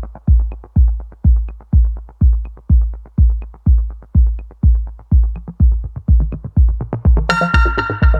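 Electronic dance music: a steady kick drum on every beat, about two a second, with a bright synth chord coming in near the end.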